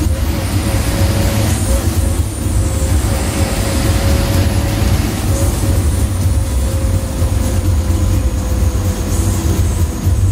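Ashok Leyland bus's diesel engine and road noise on the move: a steady, loud low rumble with a faint steady whine and hiss above it.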